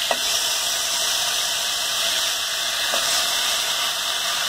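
Raw chicken pieces sizzling in hot oil in a steel pan as a steel ladle turns them: a steady hiss, with two light ladle clinks, one at the start and one about three seconds in.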